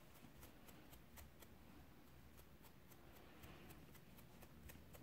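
Faint quick scratches of a wide-tooth plastic comb raking through a 100% cotton macramé-cord pompom, about four strokes a second, brushing the twisted cord out into fluff.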